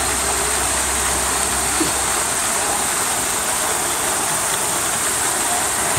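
Steady, loud outdoor hiss, with a low rumble that stops about two seconds in.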